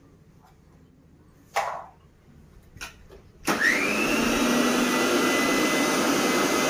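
Electric mixer grinder motor, running with no jar fitted, switched on about three and a half seconds in: it spins up with a rising whine and then runs at full speed with a loud, steady whir. A single sharp knock comes a couple of seconds before it starts.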